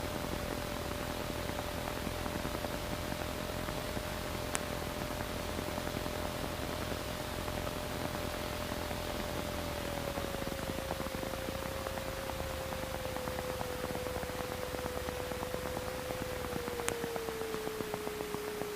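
Light aircraft cockpit noise: a steady hiss of engine and airflow with one engine tone that drops in pitch twice, about ten seconds in and again near the end. Two sharp clicks, one about four seconds in and one near the end.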